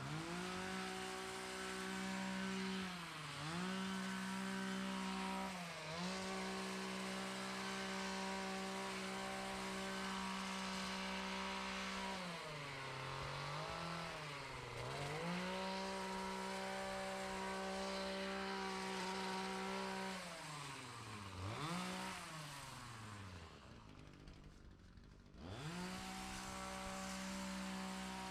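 Small gas engine of a handheld lawn tool running at full throttle with a steady high note, dropping back toward idle and revving up again several times. Near the end it goes quieter for a couple of seconds before climbing back to full speed.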